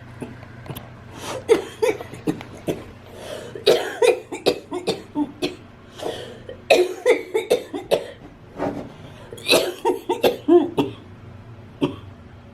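A person coughing in four or so fits of quick, harsh coughs, each lasting one to two seconds, with short pauses between them.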